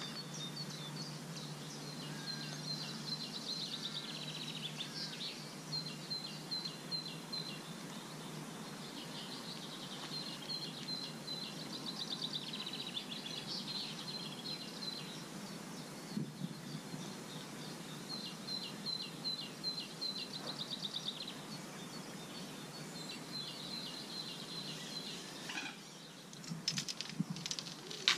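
Small songbirds singing in repeated quick phrases over steady outdoor background noise, with a few sharp taps near the end.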